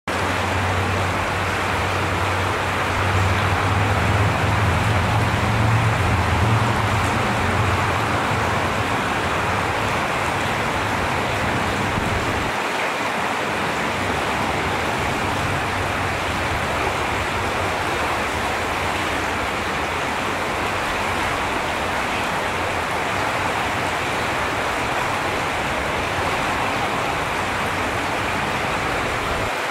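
Steady rush of a fast, shallow creek running over rocks. A low rumble underneath drops out suddenly about twelve seconds in.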